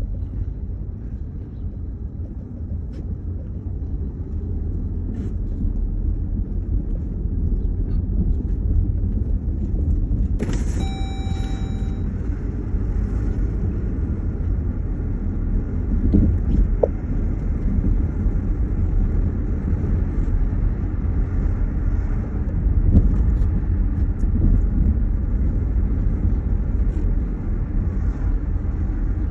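Steady low rumble of a moving road vehicle, with a short high beep about ten seconds in.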